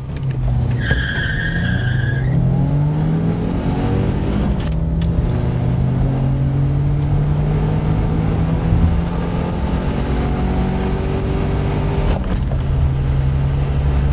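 Two cars accelerating hard from a standstill, heard from inside their cabins with both soundtracks mixed together: the Audi A6 C6's supercharged 3.0 TFSI V6 and the Opel Vectra A's 2.0 eight-valve four-cylinder. The engine notes rise and drop back at each gear change. A brief high tyre squeal starts about a second in and lasts about a second and a half.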